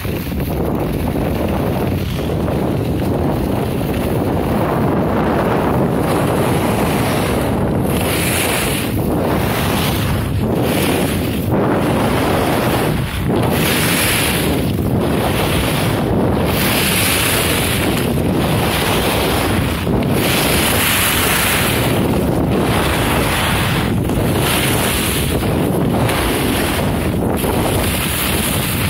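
Wind rushing over a phone's microphone while skiing downhill, with the skis scraping and hissing over packed snow. About a quarter of the way in, a sharper hiss begins to swell and fade every second or two, in time with the turns.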